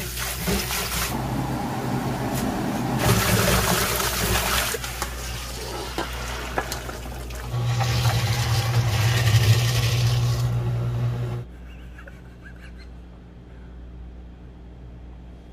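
Tap water running hard over freshly dug wild chives and shepherd's purse in a steel bowl. About halfway through, a motorised fish-scaling machine takes over with a steady low hum and hiss of water as a flounder is scaled. It cuts off suddenly, leaving quiet room tone for the last few seconds.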